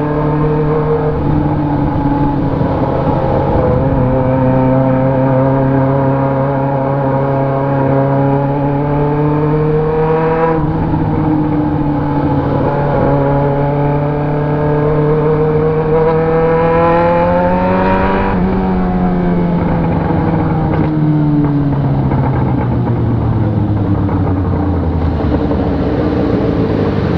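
Yamaha XJ6's 600 cc inline-four engine pulling steadily up through the revs, dropping sharply at a gear change about ten seconds in, pulling up again, then falling away as the bike slows and settling near the end.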